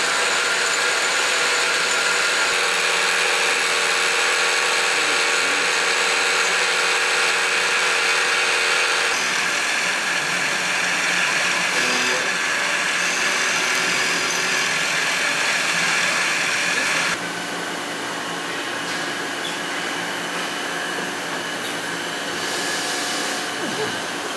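Hwacheon C1 CNC turning center machining an aluminium (AL 6061) part with a 10 mm rotating live tool: a steady machining whine with cutting noise. The sound changes about nine seconds in and turns quieter about seventeen seconds in.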